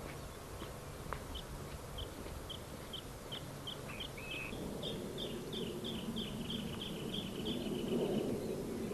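A bird singing a series of short, high notes that start slowly and speed up into a rapid trill before stopping near the end. A low, noisy rustle builds underneath in the second half.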